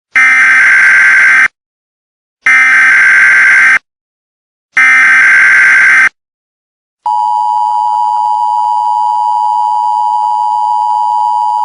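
Emergency Alert System tones: three identical bursts of SAME digital header data, each about a second and a half long with short silences between. About seven seconds in, the steady two-tone EAS attention signal begins and holds.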